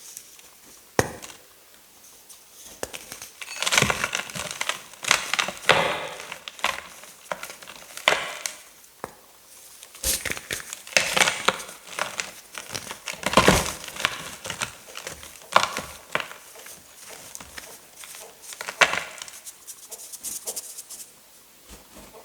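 Blocks of gym chalk being crushed: irregular dry crunching and crumbling, full of small crackles, with several louder crunches spread through it.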